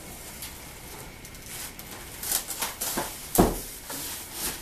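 Large cardboard box being opened by hand: packing tape slit with a knife and the top flaps pulled back. A few short, sharp scraping strokes come in the second half, the loudest a heavier thump about three and a half seconds in.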